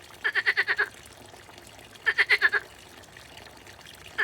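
A frog calling: two rattling calls, each a quick train of about seven pulses lasting just over half a second, a little under two seconds apart, with a third call starting at the very end.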